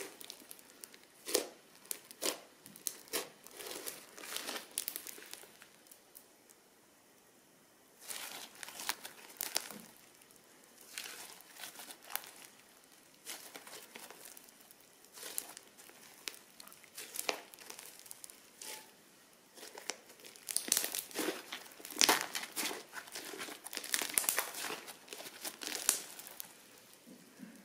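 Crunchy slime being squeezed and worked by hand, giving irregular crackling and crinkling pops. There is a short lull about a quarter of the way in, and the crackles come thickest and loudest about three quarters of the way through.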